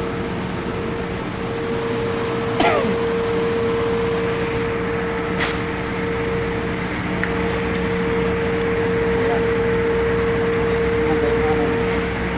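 A machine running steadily, a constant hum with a steady whine over it. A short squeak falls in pitch about two and a half seconds in, and a sharp click comes around five seconds in.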